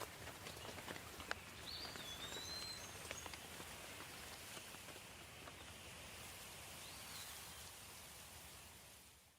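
Soft, steady rain with scattered drop ticks, and a bird chirping briefly about two seconds in. The sound fades out near the end.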